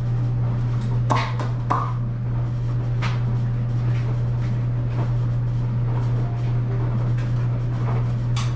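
A steady low hum, with a few light knocks and rustles over it: one about a second in, another near two seconds, and one near the end.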